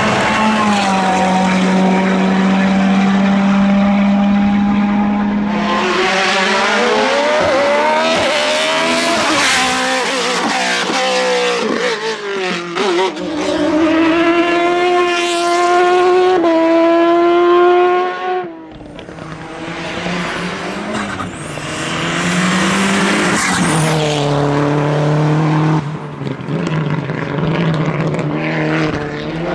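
Hillclimb racing prototype cars at full throttle, their engines rising in pitch and dropping back with each gear change as they pass. The sound breaks off suddenly about two-thirds of the way through, and another car's engine follows.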